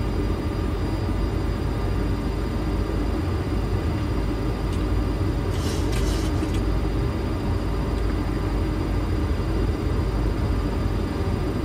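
Steady flight-deck noise of a Boeing 737-800 on final approach, with landing gear down and flaps out: a low rumble of airflow and engines under a faint steady whine. A brief hiss comes about six seconds in.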